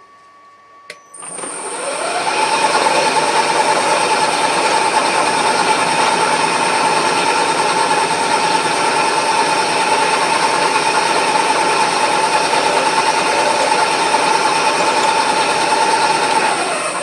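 Electric motor of a workshop machine tool spinning up about a second in, running with a steady whine for about fourteen seconds, then spinning down near the end.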